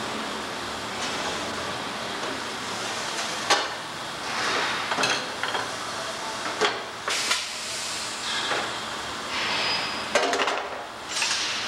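Rotary compression bending machine running with a steady hiss while a sheet-steel truck fender is bent around its die, with a series of sharp metal clanks and bangs, the loudest about three and a half seconds in.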